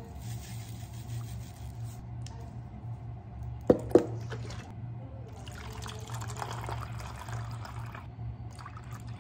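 Granulated dashi (Hondashi) shaken from its bottle into a plastic measuring jug, then two sharp clicks of a flip-top bottle cap about four seconds in. After that, liquid is poured into the jug for a few seconds: mentsuyu, then water filling it.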